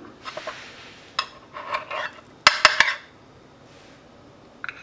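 Metal utensil clicking and scraping against a metal muffin tin and a plate as egg muffins are lifted out; a quick run of sharp clinks about two and a half seconds in is the loudest, with a last click near the end.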